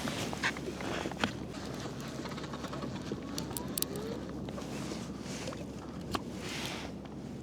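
Steady wash of sea water and wind around a fishing kayak, with scattered small clicks and knocks of fishing gear being handled, including a quick run of light ticks a little past the middle.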